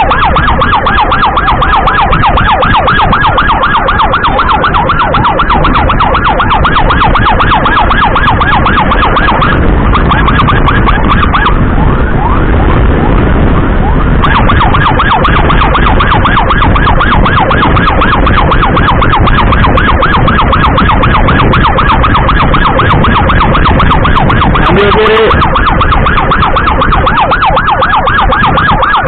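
Emergency siren sounding a loud, rapid warble over motorcycle and road rumble, with the pattern briefly changing for a few seconds about ten seconds in.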